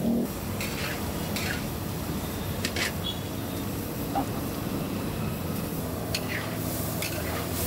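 A metal spatula scraping and clinking against a huge wok as goat meat is stir-fried, a handful of short, irregular strokes over a steady background noise.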